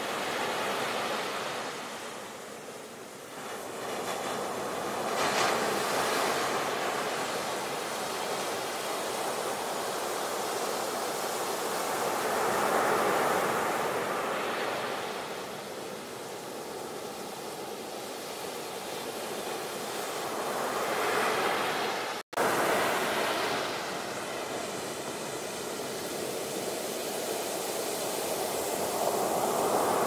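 Sea waves breaking and washing up, the surf swelling and ebbing every several seconds. The sound drops out for a split second about two-thirds of the way through.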